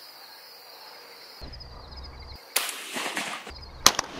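A single loud shotgun shot, near the end, fired at incoming doves.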